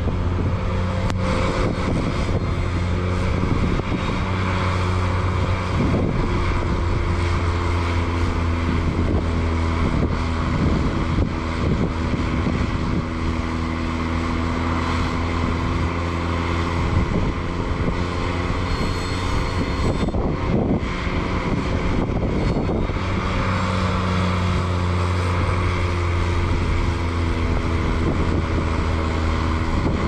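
Ventrac 4500Z compact tractor's engine running steadily while it drives a KX480 snowblower that is throwing snow. It is a continuous drone whose pitch shifts slightly now and then.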